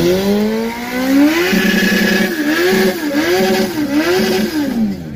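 Subaru WRX's turbocharged flat-four with an aftermarket exhaust, revved hard while stationary, heard from inside the cabin: one rise held at the top with a stuttering, chopped note, then about four quick revs up and down.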